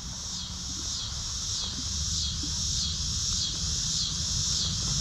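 Chorus of insects, likely katydids or cicadas, pulsing in a steady rhythm a little under twice a second.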